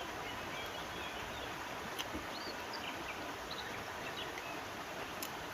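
Steady rush of river water with faint, scattered bird chirps and two light clicks, one about two seconds in and one near the end.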